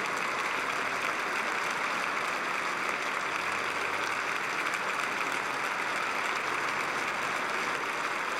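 A large crowd applauding steadily, a dense even clapping that holds at one level.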